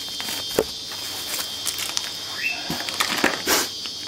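Scattered clicks, taps and rustles of e-bike conversion parts and their packaging being handled, with a sharp tap about half a second in.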